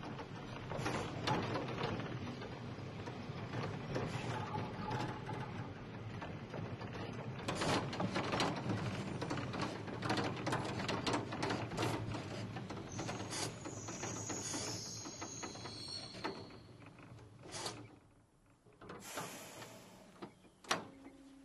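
Manx Electric Railway Car No. 1, a Victorian electric tramcar, rolling slowly over depot points and curves, its wheels and running gear rattling and clicking steadily. A high squeal comes in about two-thirds of the way through. The running then goes quieter, with a few sharp clicks near the end.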